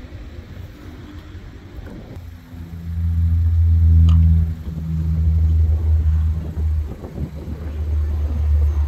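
Low, loud rumble of jet aircraft engines at the airport. It swells in about two and a half seconds in and dips briefly twice.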